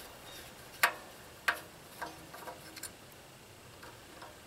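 Screwdriver clicking against the screws and sheet-metal front shield of a small generator engine as the screws are worked loose. Two sharp clicks come a little under a second in and half a second later, then a few fainter ticks.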